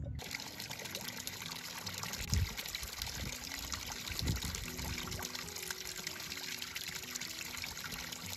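Water pouring from the end of a corrugated plastic drainage pipe and splashing into a shallow pool below, a steady rushing splash. Two brief low thumps come about two seconds apart.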